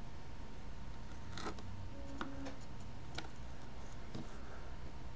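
Paring knife cutting through a cucumber on a plastic cutting board: a few soft, scattered clicks and ticks as the blade slices and touches the board, over a low steady hum.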